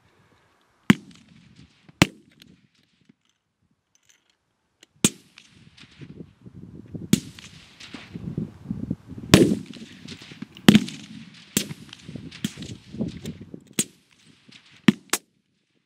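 Rifle shots along a firing line: about ten sharp reports spaced irregularly and varying in loudness, each with a short ringing tail. A low rumbling noise runs between the shots through the middle of the string.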